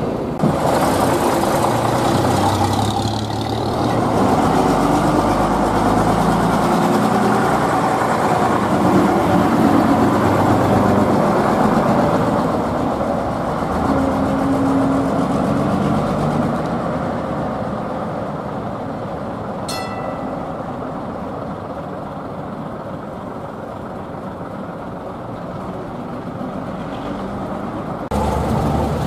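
Heritage buses' diesel engines running as the buses move along the street, louder in the first half and easing off later. A brief sharp click about twenty seconds in.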